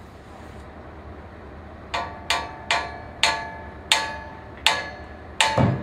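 Hammer blows on the steel of a steam locomotive: about seven sharp, ringing metallic strikes, spaced further apart as they go. The last strike lands with a dull heavy thud.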